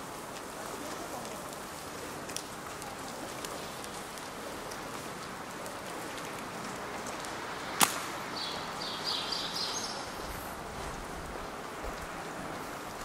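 Wet city street ambience: a steady hiss of traffic on rain-wet asphalt. About eight seconds in comes one sharp snap, the loudest sound, followed by a second or so of high, squeaky chirps. A low rumble rises near the end.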